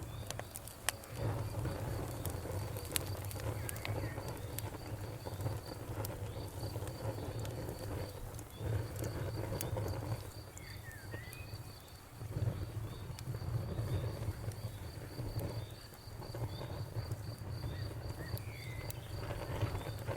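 Wood fire burning with a low, steady rumble and scattered sharp crackles and pops. A steady, rapidly pulsing high chirping, like a cricket, runs behind it.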